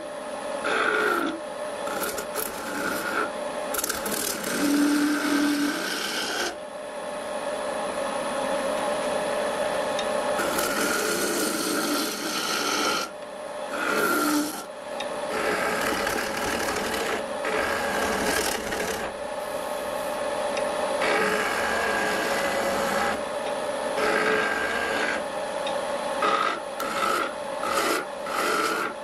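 A wood lathe runs with a steady hum while a hand-held turning tool cuts the spinning wooden blank. The rasping hiss of the cut swells and drops with each pass of the tool.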